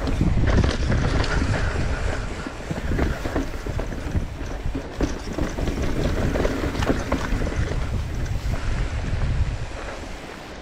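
Mountain bike descending rough dirt singletrack at speed: wind buffeting the handlebar-mounted camera's microphone in a constant low rumble, over a steady stream of clicks and rattles from the tyres, chain and frame hitting rocks and roots. The rumble eases a little near the end.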